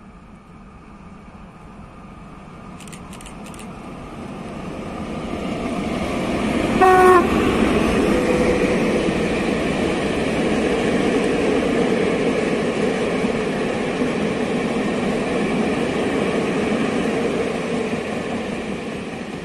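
Freight train of loaded open coal wagons behind an electric locomotive approaching and passing, its rumble growing steadily louder. About seven seconds in the locomotive gives one short horn blast. The wagons then roll by steadily, the noise easing off near the end.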